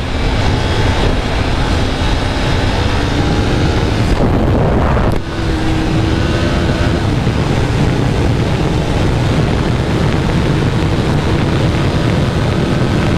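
KTM RC's single-cylinder engine under hard acceleration, from about 100 to 150 km/h, half-buried in heavy wind rush on the microphone. There is a short dip in level about five seconds in.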